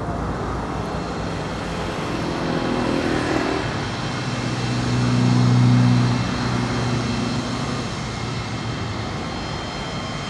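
Distant Cessna Citation CJ4 approaching, the high whine of its Williams FJ44 turbofans faint over a steady rumble. A lower hum swells to its loudest about halfway through, then fades.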